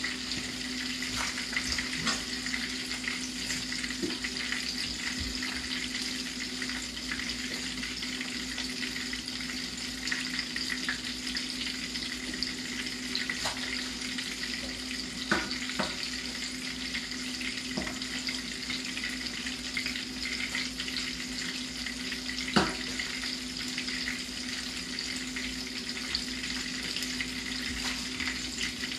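Coconut-crusted fish fillets sizzling steadily as they shallow-fry in hot oil in a skillet. A few short sharp knocks cut through, the loudest about 22 seconds in.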